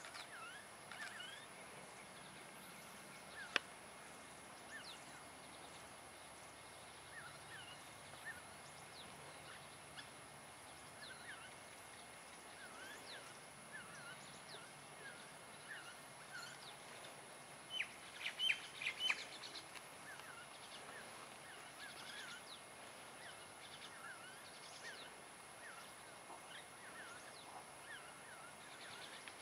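Faint outdoor ambience of small birds chirping and calling, with a brief louder flurry of calls about eighteen seconds in, over a steady high-pitched tone. A single sharp click sounds a few seconds in.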